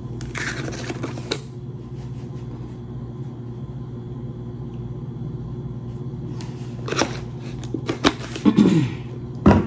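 Garlic powder shaken from a plastic spice jar, a short swishing rattle in the first second and a half, over a steady low mechanical hum. Near the end come a few sharp crinkles and taps as a plastic bag is handled.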